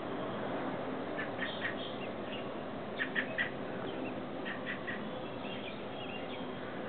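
Adult American robin giving short, sharp alarm calls in groups of two or three, the loudest a run of three about three seconds in: a parent agitated by someone at its nest of newly hatched chicks.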